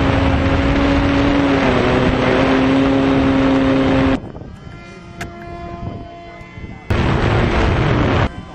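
Electric motor and propeller of a foam RC plane whining at a steady pitch under loud rushing air noise, cutting off abruptly about four seconds in and cutting back in near the end, with a fainter propeller whine between.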